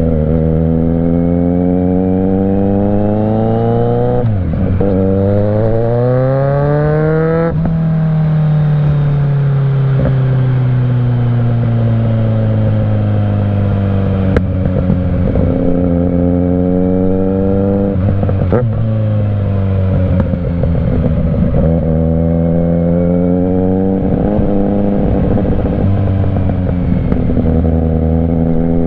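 Kawasaki Z900 inline-four running through a Mivv GP Pro exhaust while riding: the revs climb and drop sharply at two quick upshifts in the first several seconds, then fall away slowly as the throttle is rolled off, and later rise and fall again.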